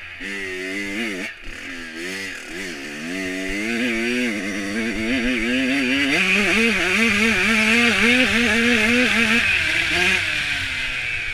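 Dirt bike engine being ridden hard, its pitch wavering up and down as the throttle is worked, with a brief cut about a second in. It gets louder as the bike opens up and pulls, then the engine backs off near the end.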